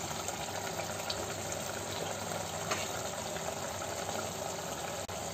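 Thick tomato-and-egg curry simmering on a low gas flame in a steel pot, bubbling steadily.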